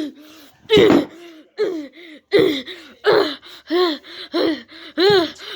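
A person's voice making a rapid string of short wordless cries and grunts, about two a second, rising to higher, wailing cries near the end: mouth-made sound effects for a puppet beating.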